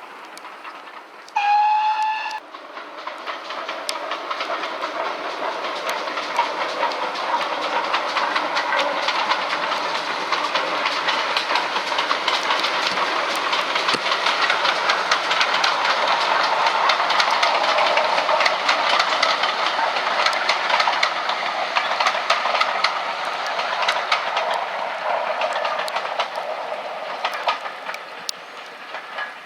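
Short single blast of a steam locomotive whistle about a second and a half in, then the train passing: running noise and wheels clicking over rail joints swell, hold for several seconds and fade away. The locomotive is GWR Large Prairie 5199, a 2-6-2 steam tank engine.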